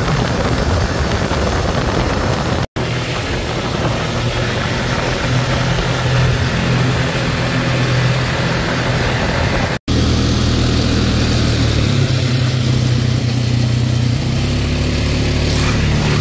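Off-road vehicle engine running steadily while driving a gravel trail, with tyre and wind noise over it; the engine pitch shifts a few times in the second half. The sound cuts out for an instant twice, about three seconds in and about ten seconds in.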